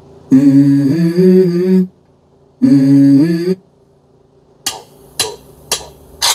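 Music from a Navpro car multimedia head unit through the car's speakers: the intro of a track, two held chords a little over a second each, then a few sharp percussive hits about half a second apart near the end.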